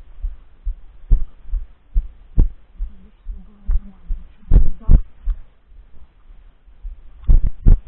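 A person walking through dry fallen leaves: footsteps thud through a body-worn camera several times a second, with sharper crunches of leaves underfoot, loudest near the middle and near the end.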